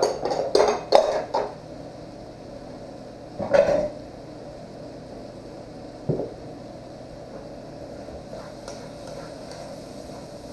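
Ceramic bowls and dishes clattering as they are handled on a kitchen counter: a quick run of clinks and knocks in the first second and a half, another clatter about three and a half seconds in, and a single dull thump about six seconds in, over a steady low hiss.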